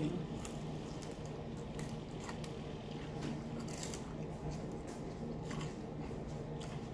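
Close-up eating sounds of crispy fried black bass being chewed: soft wet mouth sounds with a scattering of short crisp clicks and crunches. A steady low hum runs underneath.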